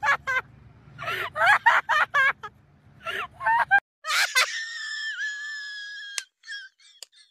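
Short, high-pitched shrieks and yells from people. After a cut, a long, high, almost steady scream lasts nearly two seconds and stops abruptly.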